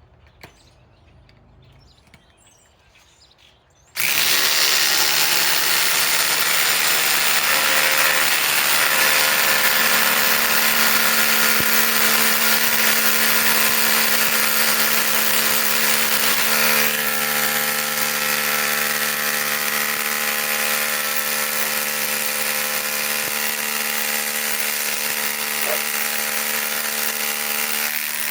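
Cordless impact driver hammering without a break as it drives a 5-inch lag screw, starting about four seconds in. It changes pitch and drops slightly in level about halfway through.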